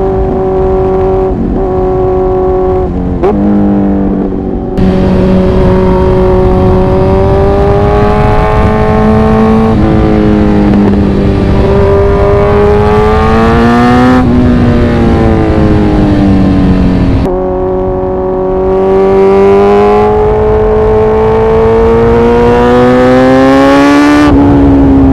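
Kawasaki Z900 inline-four engine and exhaust under way, the note rising steadily under throttle and dropping suddenly several times as the rider shifts gears.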